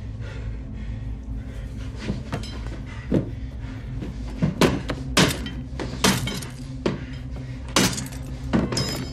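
A series of sharp knocks and clanks, about seven over the second half, as hard plastic storage bins with padlocked latches are shoved and knocked about, over a low, steady, droning film score.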